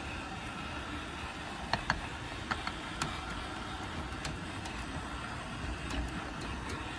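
G gauge model train running along its track, a steady running noise with a few sharp clicks, most of them bunched about two to three seconds in.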